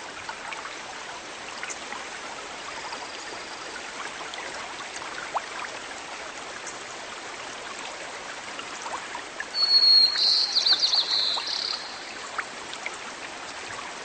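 Water running in a stream, a steady trickle with small splashes. About ten seconds in, a bird gives one high trilled call lasting about two seconds.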